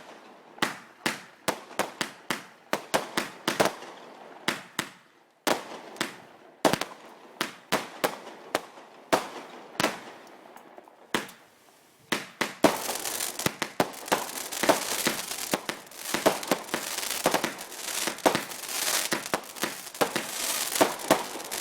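Fireworks going off: a rapid string of sharp bangs, several a second, with a couple of short lulls. About twelve seconds in, it turns into a dense crackling barrage with many bangs close together.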